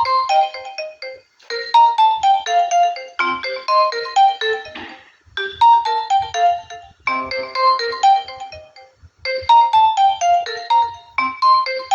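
Nokia N95 ringtone playing: a short melody of quick notes, repeated over and over with a brief gap about every two seconds.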